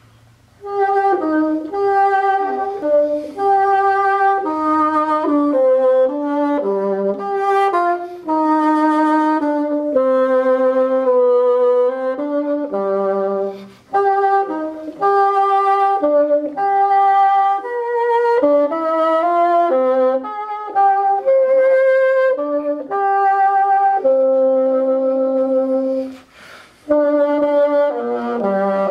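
1961 Fox Model II wooden bassoon with a Fox C2 bocal, played solo: a flowing melody of separate sustained notes, with two short pauses about 14 and 26 seconds in.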